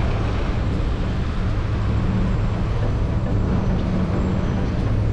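Steady road-traffic rumble with wind noise on the microphone, heard while riding along a city street.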